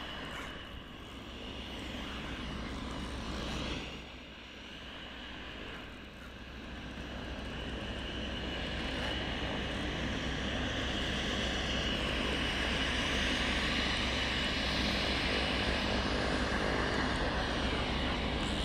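An aeroplane flying over, its engine noise growing steadily louder to a peak near the end, with a steady high whine, then cutting off suddenly.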